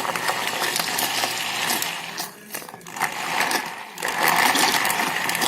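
Electric mixer grinder blending milk, crushed biscuits and ice cream into a thick shake, running in two pulses with a short break between about two and four seconds in.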